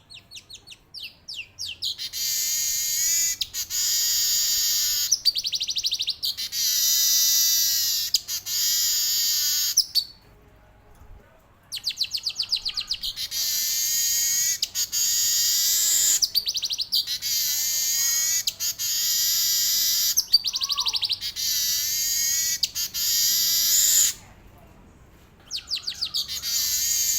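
Male manyar weaver bird singing long, dense, high-pitched rolling song phrases, each opening with a run of quick ticks that speed up into a continuous buzzy stream, broken by two short pauses.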